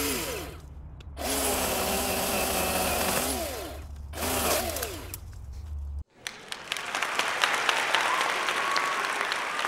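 Chainsaw cutting wood in three bursts, its pitch dropping each time it is let off. About six seconds in it cuts off abruptly and a crowd is applauding.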